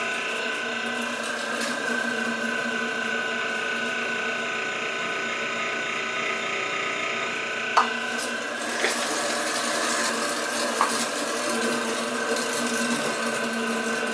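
1.5-horsepower stainless steel electric meat grinder running under load, grinding cooked meat scraps pushed down with a plastic stomper: a steady hum made of several tones, with three sharp clicks in the second half.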